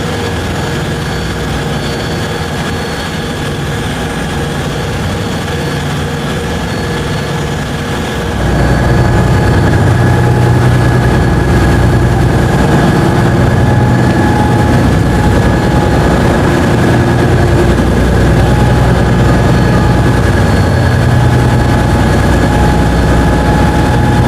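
A ferry's engines running with a steady, heavy drone and humming tones, growing louder about eight seconds in and then holding steady.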